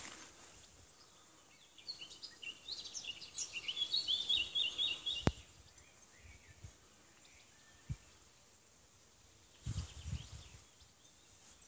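A small songbird sings a quick phrase of high chirps a couple of seconds in, ending in a fast run of repeated notes, with a sharp click just after. Low rumbles near the end, over faint outdoor background.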